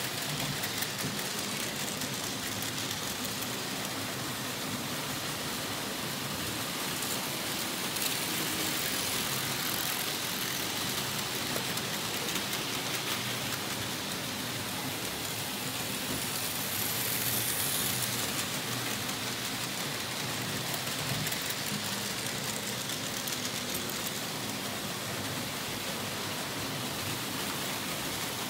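Märklin H0 model trains running on pressed-metal M-track: a steady rattling of small metal wheels over the rails and joints, with fine rapid clicking, swelling slightly as a train passes close.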